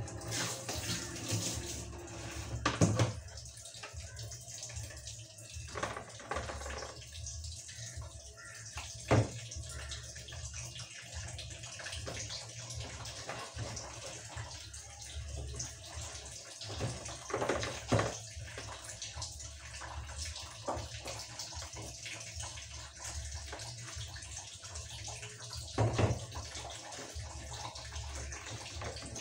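Water running and splashing at a kitchen sink while a plastic vacuum flask is rinsed and handled, with a few sharp knocks of plastic against the sink and counter.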